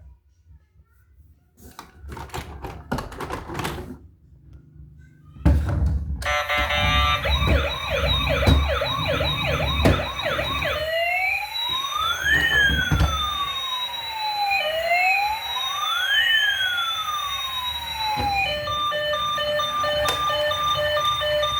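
Toy emergency vehicle's electronic siren: a few light clicks and rattles, then a knock about five seconds in as the siren starts. It runs as a fast warbling yelp, changes about eleven seconds in to a slow wail that rises and falls twice, and near the end switches to a steady repeating beep pattern.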